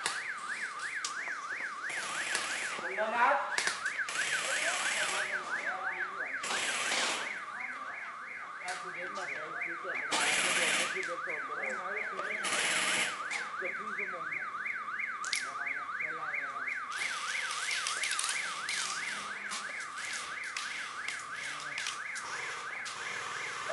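An electronic siren wails throughout, its pitch sweeping up and down about four or five times a second. Short bursts of airsoft rifle fire come over it every few seconds.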